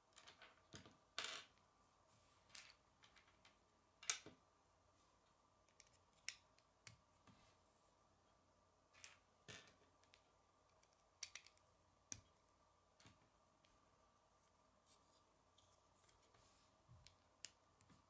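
Lego bricks being handled and pressed together: a scattering of sharp plastic clicks at irregular intervals, the loudest about a second and four seconds in, over a faint steady hum.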